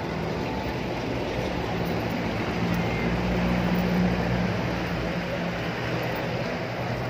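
Street noise with a motor vehicle's engine running close by. Its low hum swells about three seconds in and eases off a second or so later.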